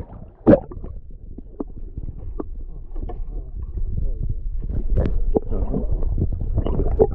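Muffled sound of a camera held under shallow seawater: a low rumble and sloshing with scattered knocks from handling, the loudest about half a second in.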